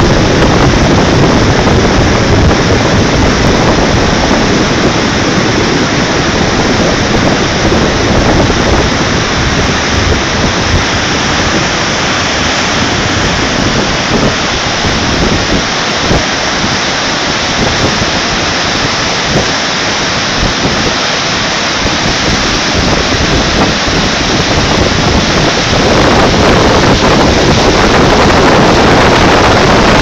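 River rapids rushing: a loud, steady rush of whitewater tumbling over rocks, growing a little louder near the end.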